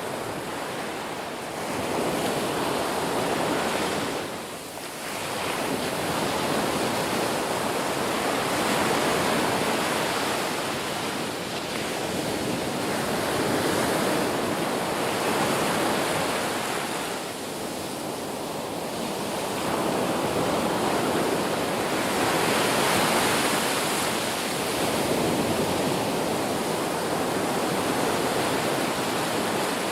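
Ocean surf: waves breaking and washing ashore in a continuous rush that swells and eases every few seconds, with brief lulls about four seconds in and again past the middle.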